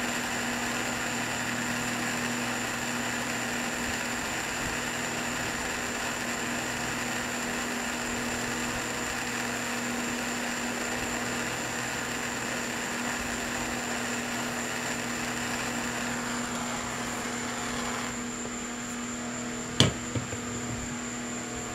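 Electric heat gun running steadily with a fan whine, heating a stuck fastener to free it. Near the end it is switched off and winds down, and a sharp metal knock follows.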